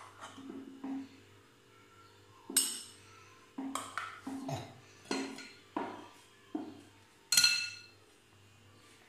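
A metal spoon clinking against a stemmed wine glass and a glass bowl as diced mango is spooned in: about eight sharp clinks, a couple of them ringing out like struck glass, the loudest near the end.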